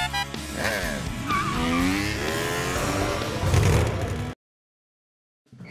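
Cartoon motorbike engine sound effect revving and zooming, its pitch sliding up and down, over background music. It cuts off suddenly about four seconds in.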